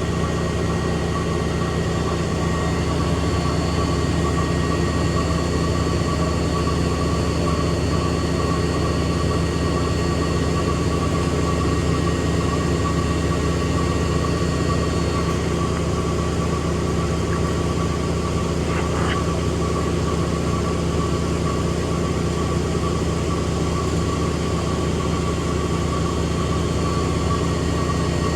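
Extra-large coin-laundry washing machine in its spin cycle: a steady mechanical drone with a high whine over it.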